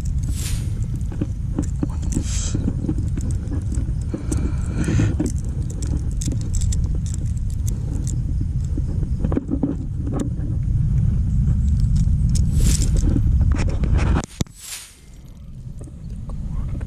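Steady low rumble of wind buffeting an action-camera microphone, with scattered clicks and rustles from handling the catch and tackle. The rumble cuts out suddenly about fourteen seconds in and builds back up near the end.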